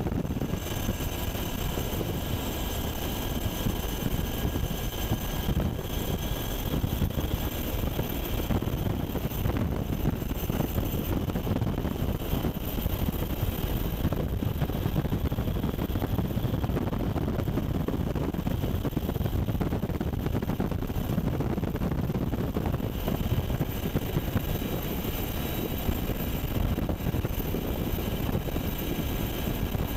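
UH-60 Black Hawk helicopter's twin turbine engines and rotors, a steady, unchanging din with a faint high whine over it, heard from inside the cabin in flight.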